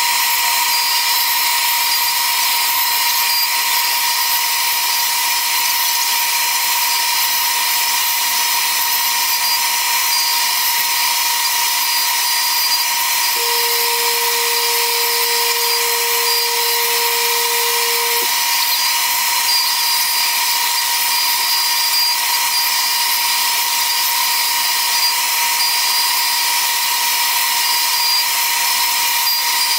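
CNC router spindle running steadily while it cuts framing ribs out of baltic birch plywood: a loud, even high-pitched whine over a hiss of cutting. A second, lower hum joins for about five seconds in the middle and then stops abruptly.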